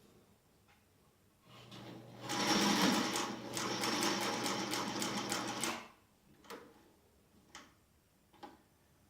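Sunstar PH500 cylinder-bed walking-foot industrial sewing machine, belt-driven by a small motor, sewing through three layers of marine vinyl. The motor hums up about a second and a half in, and the needle and walking feet clatter through a quick run of stitches for about three and a half seconds before stopping suddenly. A few light clicks follow.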